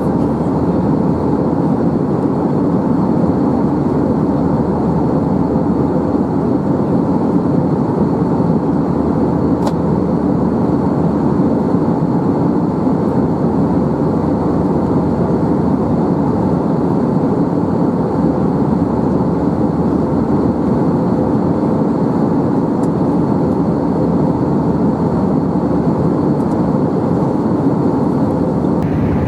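Airbus A321 cabin noise in cruise: the steady, loud rush of the jet engines and the airflow, with a faint high steady tone over it.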